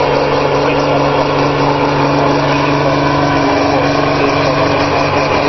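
Pulling tractor's diesel engine running flat out under full load as it drags a weight-transfer sled, a loud, steady sound with no change in pitch.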